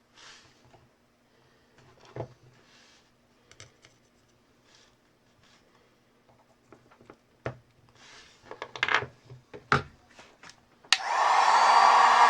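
Light taps and scrapes of small tools against the phone. About eleven seconds in, a hair-dryer-type hot-air blower switches on suddenly and runs steadily and loud.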